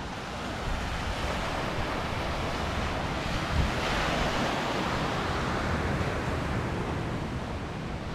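Small Lake Huron waves breaking and washing up a pebble beach, with one wave breaking louder about four seconds in. Wind buffets the microphone with a low rumble.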